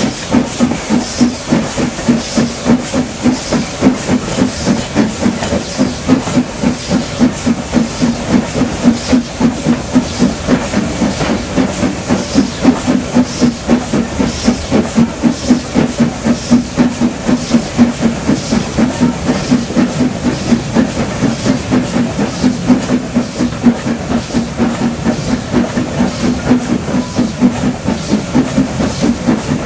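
Somerset & Dorset Joint Railway 7F 2-8-0 steam locomotive 53808 running downhill with a steady hiss of steam. The running train makes a regular pulsing beat a few times a second.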